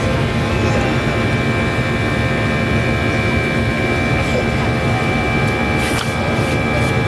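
Jet engines of an airliner heard from inside the cabin while climbing out after takeoff: a steady, loud rush and rumble with constant humming tones over it.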